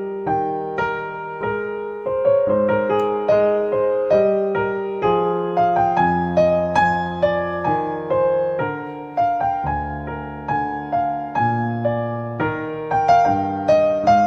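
Background piano music: a gentle melody of struck notes over chords, each note ringing and fading.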